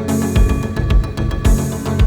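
Background music with a heavy steady beat, about two beats a second, over sustained tones.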